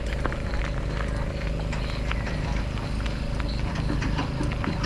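Ride noise from a bicycle: a steady low rumble under a constant hum, with many quick irregular clicks and rattles.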